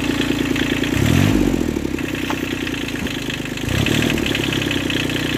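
Kubota compact tractor's diesel engine running steadily; its note swells briefly about a second in and again near the end.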